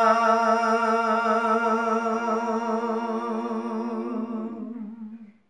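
A man's unaccompanied voice holding one long sung note at the end of a line of a Gojri bait (folk verse), steady in pitch with a slight waver, fading out near the end.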